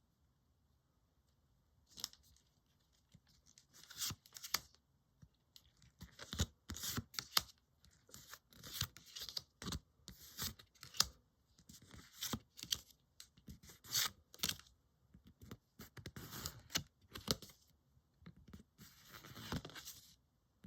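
Pokémon trading card booster pack being torn open and its cards handled: a series of short papery tearing and rasping sounds, starting about two seconds in and recurring roughly once a second.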